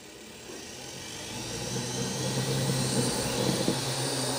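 WLtoys V212 micro quadcopter's motors and propellers spinning up for take-off: a whine that grows louder over the first two seconds, then holds steady as it lifts off and hovers.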